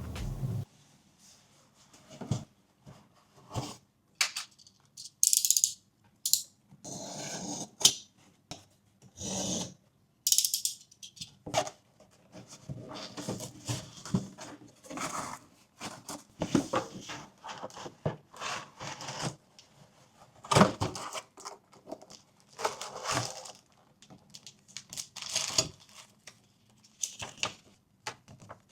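A parcel being unboxed by hand: irregular rustling and scraping of packaging, with scattered light knocks and taps and short pauses in between.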